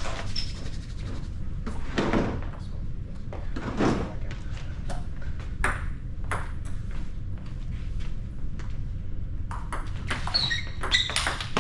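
Table tennis ball clicking off bats and the table during play, in an irregular run of sharp ticks that comes thickest near the end.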